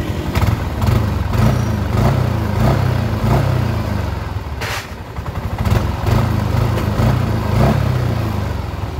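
Yamaha NMAX 155 scooter's single-cylinder engine running with the throttle blipped again and again, driving the rear wheel through the CVT on the stand. The rear CVT area runs without the clicking ('cetok-cetok') noise, which the mechanic takes as a sign that replacing the worn CVT box bearing has cured it.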